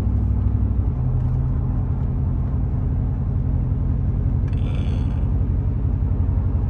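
Steady engine and road noise inside a moving pickup truck's cab, a low hum whose pitch changes about a second in. A brief hiss about four and a half seconds in.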